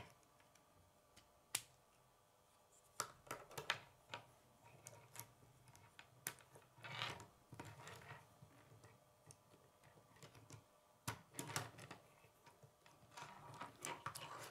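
Faint plastic clicks and light rattling from K'nex rods and connectors being handled and snapped together. The clicks come singly and in short clusters, with pauses between.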